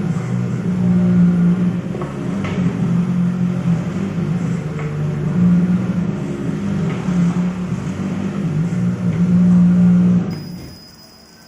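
CO2 laser marking machine with automatic feeder and conveyor running: a steady machine hum that swells and fades, with a faint click about every two seconds. The hum cuts out about ten seconds in and resumes just after the end.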